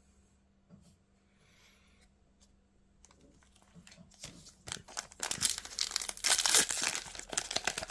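Foil wrapper of a One Piece card game booster pack being torn open and crinkled. It starts faintly about three seconds in and grows loud toward the end.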